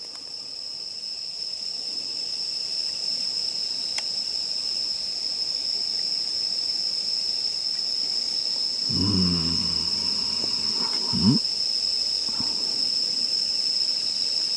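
Night insects singing a steady, high-pitched continuous chorus. About nine seconds in, a man makes a low wordless vocal sound for a couple of seconds, ending in a short rising note.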